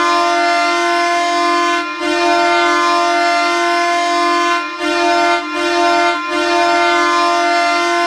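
Ottawa Senators' arena goal horn blowing in five blasts: two long ones, two short ones, then a long one. Its chord sounds off-key, likened to Squidward's clarinet.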